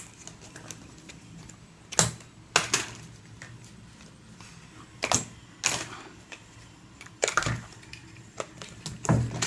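About six sharp clicks and clacks of plastic parts being handled as a clip fan is taken apart and its blade removed.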